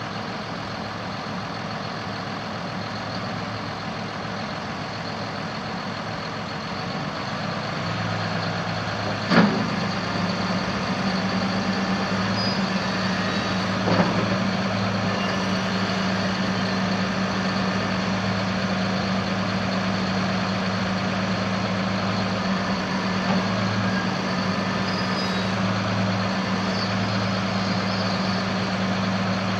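John Deere 6210R tractor's 6.8-litre six-cylinder diesel engine running steadily. The hum grows louder about eight seconds in, with sharp knocks about nine and fourteen seconds in.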